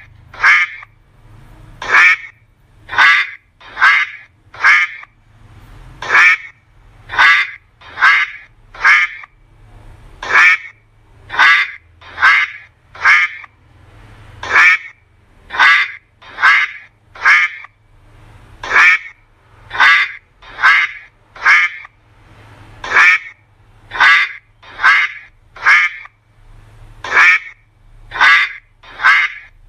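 Duck quacking: short, loud quacks repeated over and over, often in quick runs of two or three.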